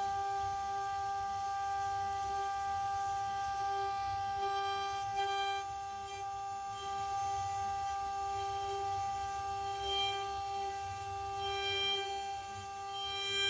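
6040 CNC router spindle running at a steady high-pitched whine while milling a wood relief, with a low rumble underneath and brief bursts of hiss about five seconds in and near the end.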